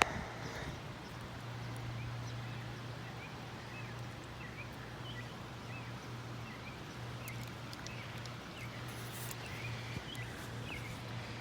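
Outdoor ambience: a steady low hum with many faint, short bird chirps over it.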